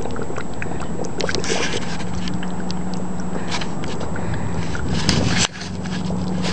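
Hydrogen bubbling and fizzing hard, a fast crackle of small pops, from aluminum dissolving in a lye solution and gas bubbling out of a tube into a cup of water. A steady low hum runs under most of it, and the level drops suddenly about five and a half seconds in.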